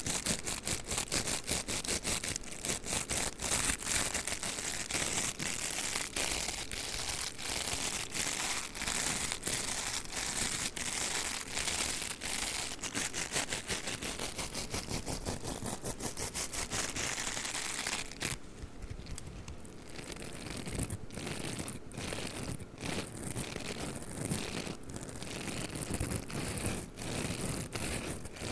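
Hair roller scratched and rubbed close up: a rapid, dense crackly scratching that thins out about two-thirds of the way through into separate clicks and scrapes.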